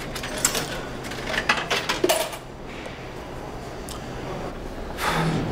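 A quick series of light metallic clinks and clatters over the first two seconds, then quiet room tone, with a short low hum-like sound starting near the end.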